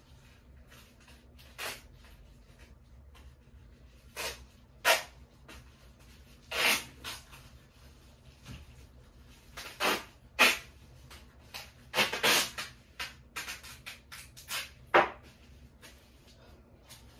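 Irregular rustles and sharp knocks of goods and bags being handled while a cardboard box is packed, with a dozen or so short bursts spread unevenly and a few longer rustles.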